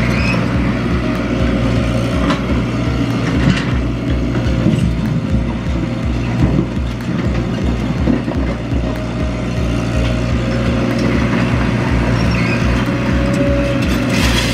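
Komatsu mini excavator's diesel engine running steadily while the bucket digs and moves rocks, with a few sharp knocks of stone against the bucket.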